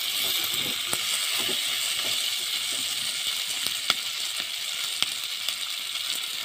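Chopped onion and green capsicum sizzling steadily as they fry in oil in a metal pan, with a few sharp clicks.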